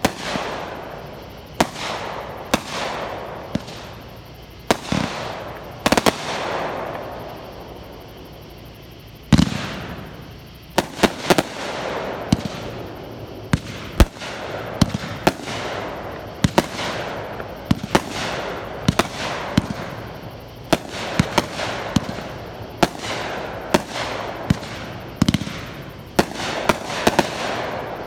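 Aerial fireworks going off: sharp bangs of launches and bursts in quick, irregular succession over a crackle. A short lull about a quarter of the way in, then the bangs come thick and fast.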